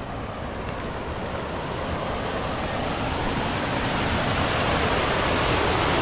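Waterfall: a steady rush of falling water, growing gradually louder.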